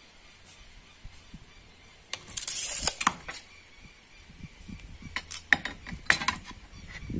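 Steel tape measure blade retracting into its case with a quick rattling whir, about a second long, ending in a snap. A few seconds later come several sharp metallic clicks as a steel carpenter's square is set down on a wooden pallet board.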